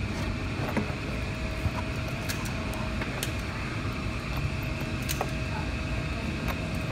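Steady workshop machine hum with a constant whine, and a few light clicks as a small plastic wheel on a bolt is handled.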